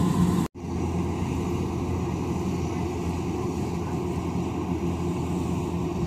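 Agricultural machine's engine running steadily with a low, even hum. The sound cuts out for an instant about half a second in, then carries on.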